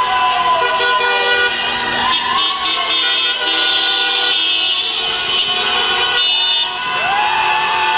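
Many car horns honking at once in jammed street traffic: long, overlapping blasts at several different pitches, a celebratory horn chorus.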